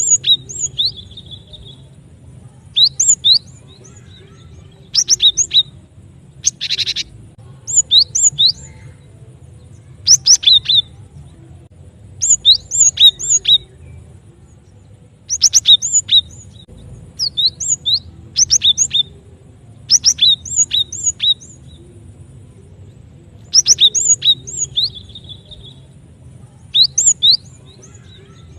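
Cinereous tit (gelatik batu) calling in quick clusters of three to six short, sharp, high notes, a cluster every two to three seconds, over a faint low hum. It is a played-back lure recording used to draw the birds in for trapping.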